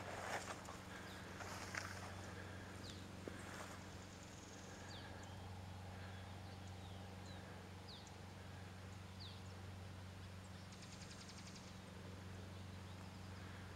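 Quiet field ambience under a steady low hum: small birds give scattered short, sharp falling chirps, with a couple of rustles in the first two seconds and a brief high rapid trill near the end.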